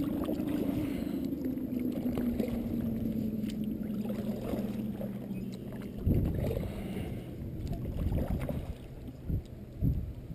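Double-bladed kayak paddle strokes dipping and splashing beside a sit-on-top kayak on calm water, with water sloshing along the hull. Under it runs a steady low hum whose pitch slowly drops over the first few seconds. A few louder thumps come about six seconds in and near the end.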